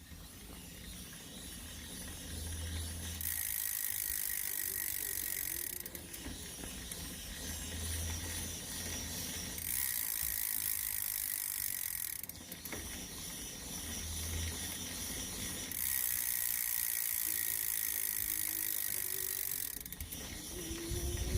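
Ride1Up 700 e-bike hub making a rubbing-sounding mechanical noise as the pedal crank is turned, swelling louder in three spells of a few seconds each. The noise sounds like something rubbing but isn't, and comes only while the pedals are turning.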